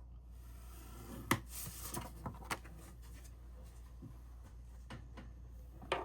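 Paper card stock being handled: a few light taps and clicks, with a short stretch of paper rustling about a second in, over a steady low hum.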